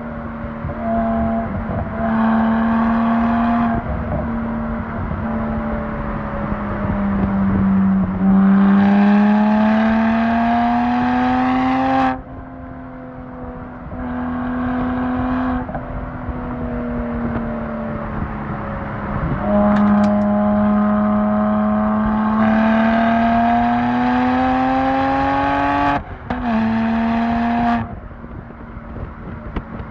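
BMW 1M Coupe's N54 twin-turbo straight-six through a full Akrapovic titanium exhaust, driven hard: short bursts of throttle and two long pulls where the engine note rises steadily, each ending with a sudden drop as the throttle comes off, with lighter running in between.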